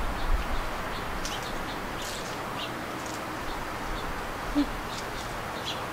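Small birds chirping, short high calls scattered through, over a steady background hiss, with one brief low note about four and a half seconds in.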